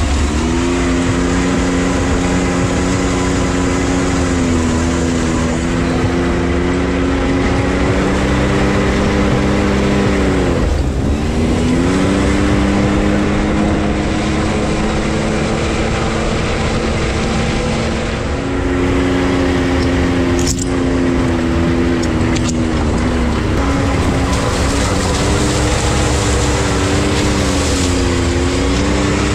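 Side-by-side UTV engine running at a fairly steady pace, its pitch dipping and climbing back about a third of the way in and again near the end, over a steady rushing noise. A short sharp click comes about two-thirds of the way through.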